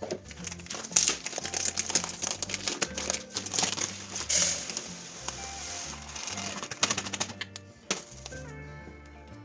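Soft background music under irregular clicks, light clatter and crinkling of packaging being handled.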